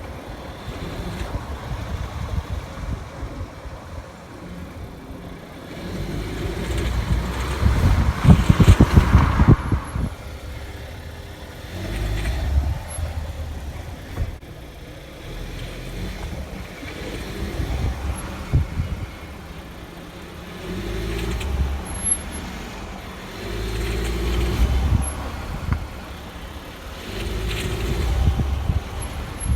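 Skoda Octavia A7's 1.2 TSI engine pulling under throttle in repeated surges, the strongest about eight seconds in. This is the condition under which the owner hears a knock like valve or piston-pin knocking.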